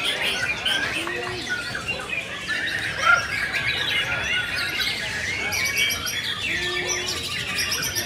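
Several caged songbirds singing at once in a dense, overlapping chorus of whistles, chirps and rapid high trills, with a white-rumped shama among them. A sharp, loud chirp comes about three seconds in.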